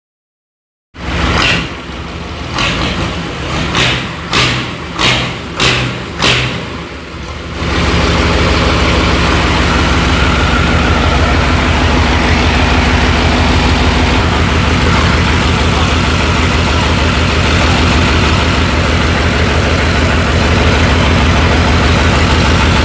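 Bulldozer engine being started: an uneven cranking stretch with a series of about seven firing bursts, then the engine catches about a third of the way in and settles into a loud, steady run.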